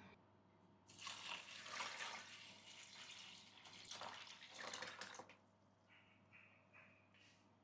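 Water running and splashing for about four seconds, then stopping.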